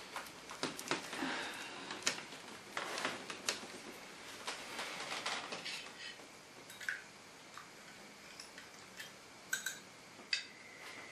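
Teaspoon stirring tea in a glass cup on a saucer, tapping and clinking against the glass in scattered light clicks, a few of them ringing briefly.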